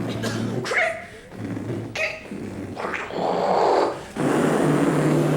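A man making sound effects with his mouth: a steady low humming drone like an aircraft engine, broken by a few sharp clicks and a growling rush about three seconds in, after which the drone comes back at a higher pitch.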